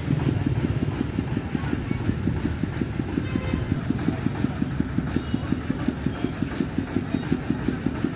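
A motorcycle engine idling close by: a steady low thump of about seven or eight beats a second that does not change.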